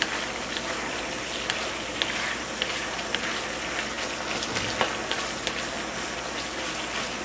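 Diced chicken sizzling in sauce in a nonstick wok while a wooden spatula stirs it, with many small scrapes and taps of the spatula against the pan.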